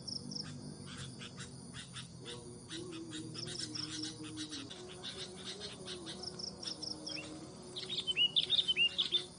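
Sooty-headed bulbuls calling: short chirps and a high repeated trill, then a burst of loud, rapid bubbling call notes about eight seconds in.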